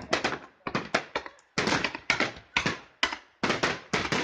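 Fireworks going off: a quick, irregular series of sharp bangs, about two or three a second, each dying away fast.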